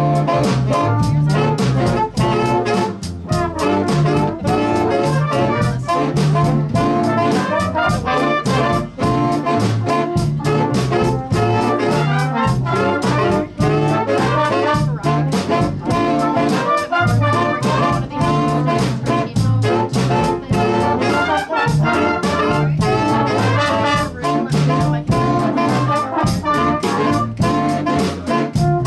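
A school jazz big band playing a brass-heavy chart, with trombones, trumpets and saxophones over a steady beat.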